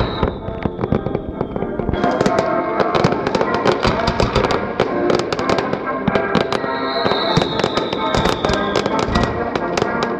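Fireworks display: a dense, unbroken volley of bangs and crackles, with two high whistles that fall slightly in pitch, one at the start and one past the middle.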